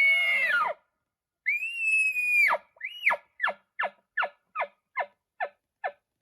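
Elk bugle blown on a hunter's call as a locator bugle: a held high whistle that drops off under a second in, a second shorter whistle that rises and falls, then about eight quick falling chuckles, each a little fainter.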